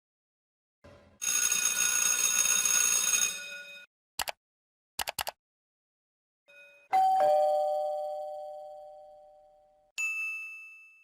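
A run of separate sound effects with gaps of silence between them. First a loud, noisy, buzzing blast about two and a half seconds long, then a few quick clicks. Then a two-note ding-dong chime, high note then low, that slowly fades, and finally a short high ding.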